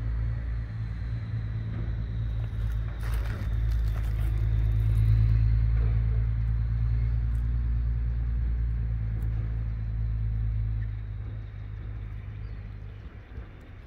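A vehicle engine running steadily, a low rumble that fades out about eleven seconds in.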